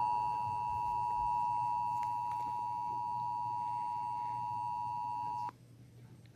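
Emergency Alert System attention signal: a steady two-tone alarm, the tone that opens a severe weather warning broadcast, which cuts off abruptly about five and a half seconds in, leaving faint hiss.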